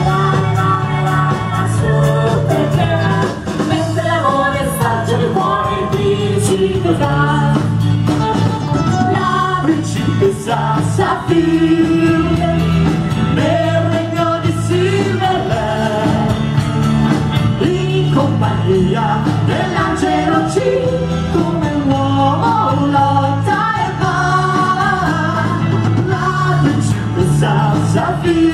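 Live rock band playing steadily on electric guitar, bass guitar and drum kit, with a singer's voice carrying the tune over them.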